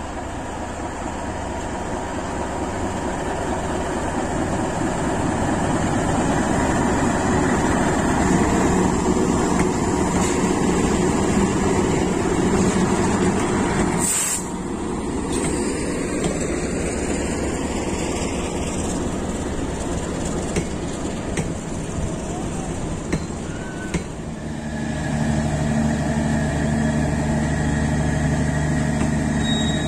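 CC 206 diesel-electric locomotive passing at close range, its engine growing louder as it nears. It is followed by passenger coaches rolling by, their wheels running on the rails with a steady low hum.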